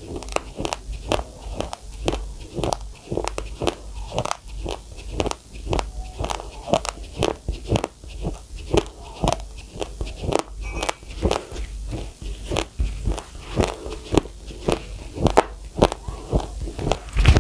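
A person chewing a mouthful of raw, uncooked rice grains close to the microphone: a steady run of sharp crunches, about three a second, as the dry grains crack between the teeth.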